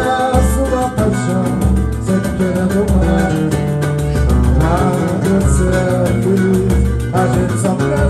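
Live samba band playing: cavaquinho and guitar strumming over a pandeiro and wooden hand drums (tantã and rebolo) keeping a steady bass beat, with voices singing along.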